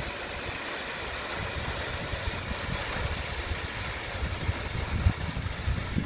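Steady rushing of a tall waterfall plunging into its pool, with wind buffeting the microphone in low gusts that grow stronger near the end.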